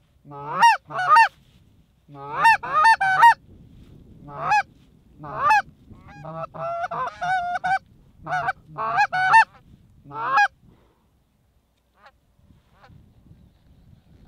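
Canada goose calling blown close by on a hunter's goose call: loud, quick honks and clucks, each note breaking upward in pitch and falling, in bursts with a fast run of clucks in the middle. The calling stops about ten and a half seconds in.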